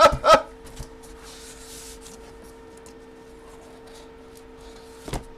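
Faint rustling and light handling of paper packaging and a photo, over a steady electrical hum, after a short loud vocal exclamation at the very start and a brief one near the end.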